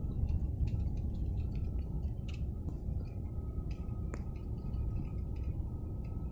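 Low, steady road and wind rumble from a vehicle in motion, with scattered light clicks and knocks.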